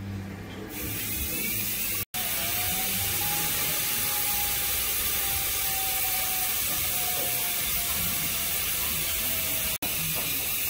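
A loud, steady mechanical whirring noise that cuts out for an instant twice.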